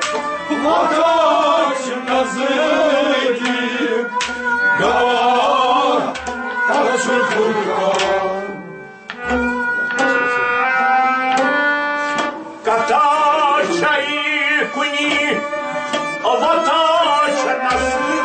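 Harmonium playing a melody with drum beats, and a man's voice singing long wavering phrases over it in several stretches.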